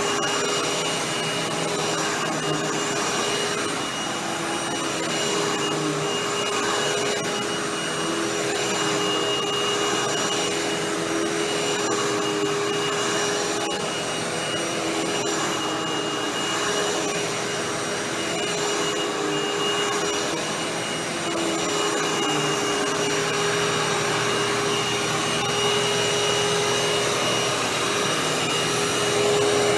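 Hoover WindTunnel Anniversary Edition bagless upright vacuum running steadily: a motor whine over a rushing of air, its pitch dipping slightly now and then.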